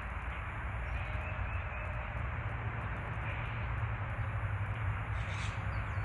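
Steady outdoor background rumble and hiss, with a brief high chirp and a short falling call from a small bird near the end.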